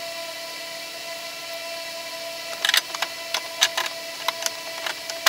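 Irregular light metal clicks and clinks of a strut tower bar and its bolts being handled and fitted into place, starting about two and a half seconds in, over a steady hum.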